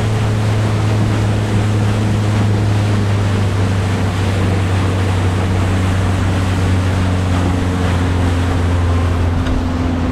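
Boat engine running steadily at low speed, a constant deep hum with some water and wind noise over it.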